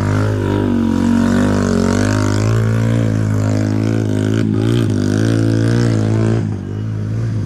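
Single-cylinder four-stroke engine of a Honda CRF150L trail bike running under way, its revs rising and falling as the throttle is worked.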